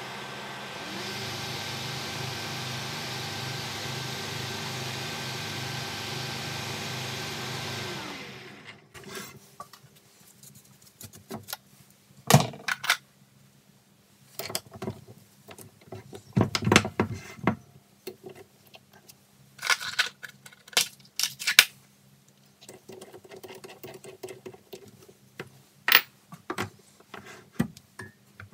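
Small metal lathe's motor and spindle running steadily, rising in pitch about a second in, then winding down and stopping about 8 s in. After it stops, scattered sharp metallic clicks and knocks as the tailstock drill chuck and tools are handled.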